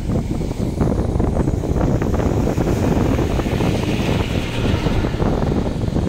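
Wind buffeting the microphone in a loud, gusty rumble, with a bus driving past close by.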